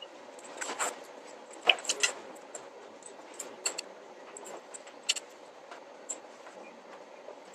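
Quiet classroom room tone: a steady background hiss with scattered small clicks and rustles from students working at their desks with books, paper and pens, the sharpest a couple of seconds in.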